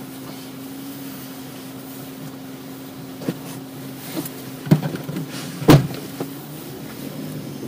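Car interior with a steady low hum, with a few knocks and clicks and a louder thump about six seconds in as a car door shuts while a passenger gets in.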